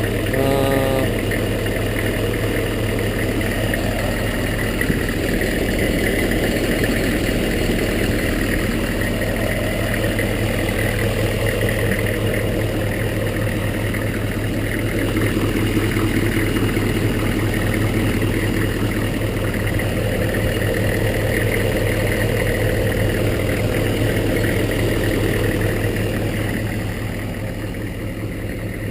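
GM 6.5-litre turbo diesel V8 of a 1999 Chevy Suburban 2500 idling steadily after a start, its level dipping slightly near the end.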